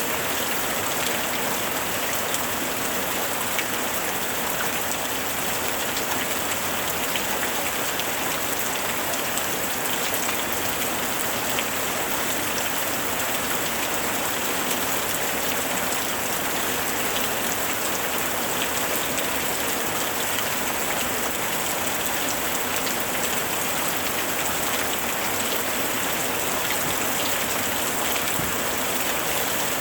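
Steady rain falling on a surface: an even, dense patter with fine drops ticking through it, no thunder or breaks.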